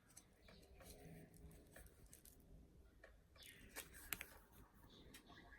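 Faint clicks and rustles of small album packaging and cards being handled, with a few sharper clicks a little past halfway.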